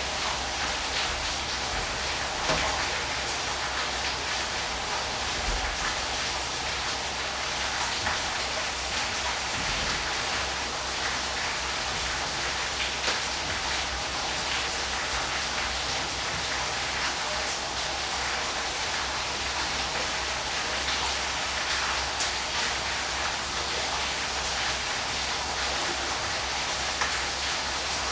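Steady rushing of a waterfall, with a few brief splashes standing out.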